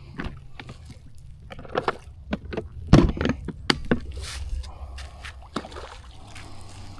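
Water splashing and sloshing around a hooked fish as it is brought in, with irregular sharp knocks and clicks, the loudest about three seconds in, over a steady low rumble.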